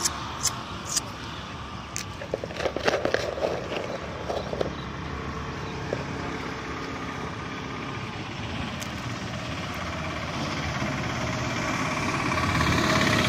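Road traffic noise, with a vehicle approaching and passing near the end. A few sharp clicks come in the first few seconds.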